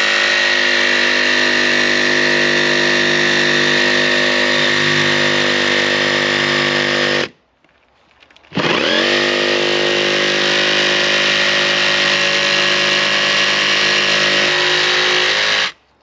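Cordless jigsaw cutting through a van's sheet-metal side panel in two long steady runs. The first stops suddenly about seven seconds in, and after a short pause the saw spins up again and cuts until it stops just before the end.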